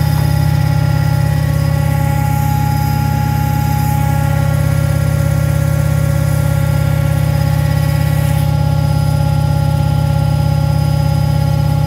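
Beko washing machine running steadily, its motor giving a loud constant hum with a steady whine over it.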